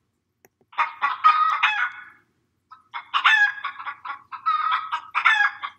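Hen clucking in two bouts of quick, repeated clucks: a short one about a second in, then a longer run from about three seconds in.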